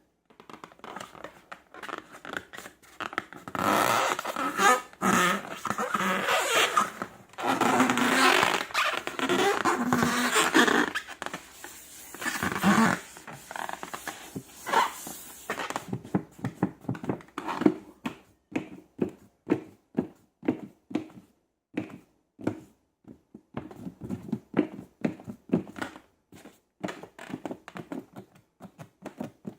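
Slime being handled and mixed by hand: wet, sticky squelching, then from about halfway a quick run of small sticky clicks and pops.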